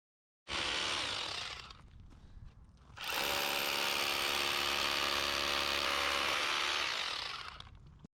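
A power tool runs in two bursts: a short one about half a second in that dies away, then a longer, steady run from about three seconds in, a steady hum under harsh, hissing noise.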